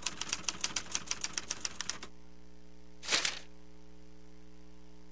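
Manual typewriter keys clacking in a rapid run that stops about two seconds in. About a second later comes one short rustle of a newspaper being lowered.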